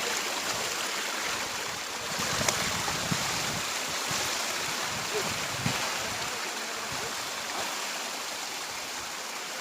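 Steady rushing of running water, an even hiss with no rhythm, and a few soft low thumps about two to six seconds in.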